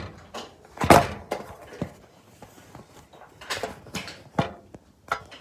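Several knocks and thuds of things being handled and set down on a kitchen counter, the loudest about a second in and a quick cluster of three near the end.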